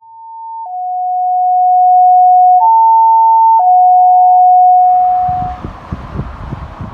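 Steady electronic alert tones switching back and forth between a higher and a lower pitch, fading in and then fading out. About five seconds in, outdoor noise with a low rumble and wind on the microphone takes over.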